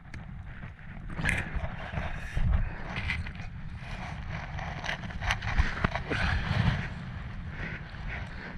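Handling noise on a small fishing boat: irregular scrapes, knocks and clatter as a fish is brought in on the line. A low rumble of wind on the microphone runs under it.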